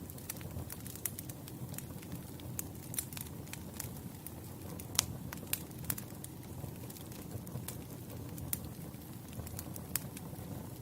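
Campfire burning: a steady low rumble of flames with frequent sharp, irregular crackles and pops of burning wood, the loudest pop about five seconds in.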